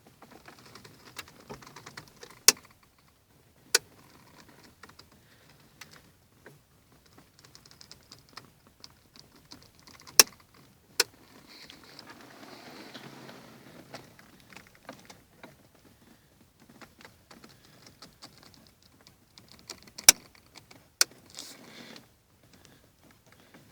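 Renault Clio steering wheel clicking: six sharp clicks in three pairs, each pair about a second apart, with faint rustling and creaking between them.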